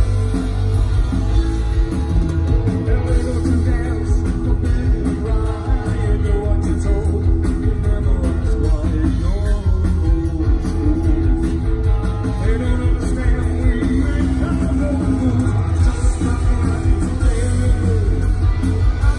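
Punk rock band playing live and loud through a stage PA: electric guitar, bass guitar and drums, with a male lead singer.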